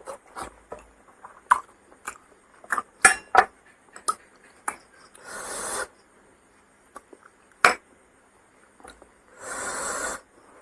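Close-up eating sounds: a run of sharp wet clicks and smacks of chewing, with two longer noisy bursts of under a second, about five seconds and nine and a half seconds in.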